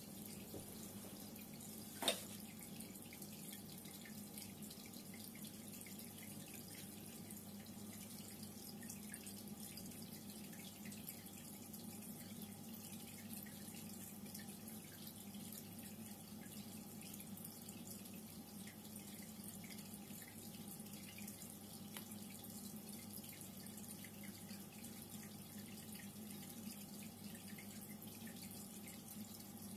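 Reef aquarium water trickling and dripping steadily over a low, steady pump hum. One sharp click about two seconds in.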